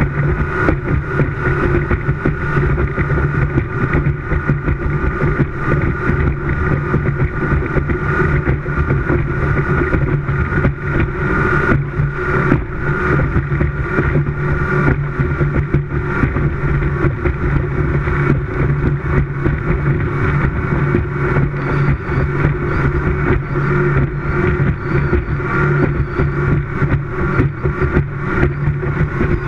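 Speedboat engine running steadily at high speed, with wind buffeting the bow-mounted camera's microphone and frequent thumps from the hull on the water.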